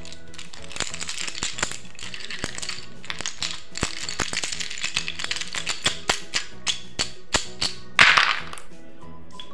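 Handful of chunky toy alphabet letters rattled in cupped hands, clicking against each other many times, then a louder clatter about eight seconds in as they are dropped onto the paper. Background music plays throughout.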